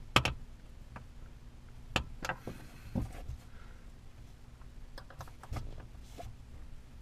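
Hard plastic clicks and knocks from a truck sun visor being handled at its headliner mount while its screws are threaded in by hand, with a few sharp taps and some brief rustling; the loudest click comes just after the start.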